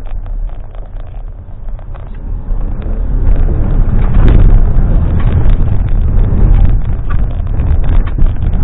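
Volvo XC90 driving over a rough, wet dirt track, heard from inside the cabin: a low rumble of tyres and suspension with frequent knocks. About three seconds in it grows louder as the car splashes through water that sprays up over the windscreen.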